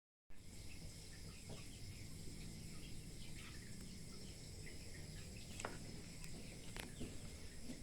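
Outdoor ambience: a steady high insect drone with short bird chirps throughout, and two sharp clicks about two-thirds of the way through.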